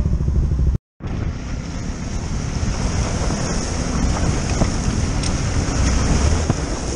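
Dirt motorcycle engine running while the bike fords a fast, muddy river, with water rushing and splashing and wind buffeting the helmet-mounted microphone. The sound cuts out completely for a moment just under a second in, then resumes.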